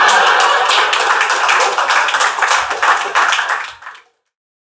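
Audience applause: many hands clapping densely, fading out about four seconds in.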